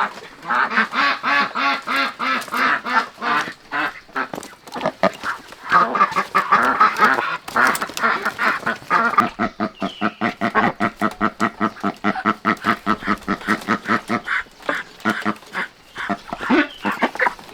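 Many ducks quacking together in fast, unbroken runs of calls.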